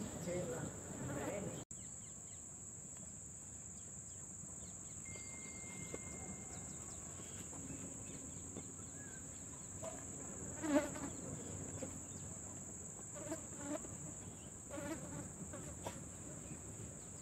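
Steady high-pitched insect drone, with a few brief faint sounds over it, the loudest about eleven seconds in.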